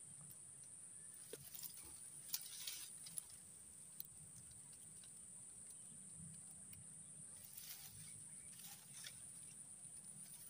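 Near silence: faint outdoor ambience with a steady high-pitched hiss and a few faint rustles.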